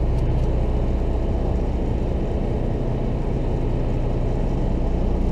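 Sportfishing boat's engine running steadily: a low, even drone.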